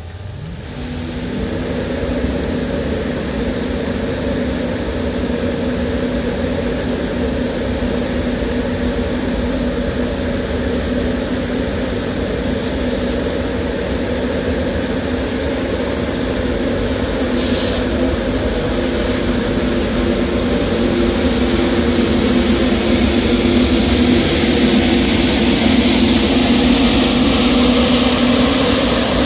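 LNER Class 91 electric locomotive with its InterCity 225 coaches moving slowly along the platform road. Its electric hum has a few steady tones over wheel and rail noise, and it grows louder near the end as the locomotive draws nearer.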